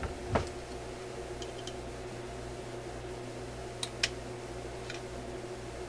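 Small sharp clicks of needle-nose pliers and a wire clip against a record-player cartridge as the red lead is pressed onto its pin. There is one click near the start, two close together about four seconds in, and a few fainter ticks, over a steady hum in the shop.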